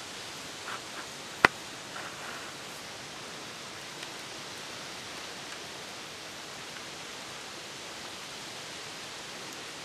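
A steady, even outdoor hiss, with a few soft rustles in the first two seconds and one sharp click about one and a half seconds in.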